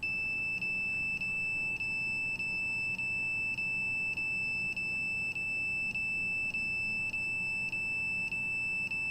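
Handheld RF signal detector sounding a steady, high-pitched electronic tone as it picks up a radio signal, with brief dips in the tone about every half second.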